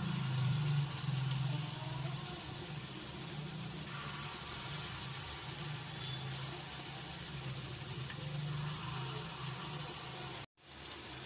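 Palm-fruit batter fritters (taler bora) sizzling in hot oil in a wok: a steady bubbling hiss over a low hum. The sound cuts out briefly near the end.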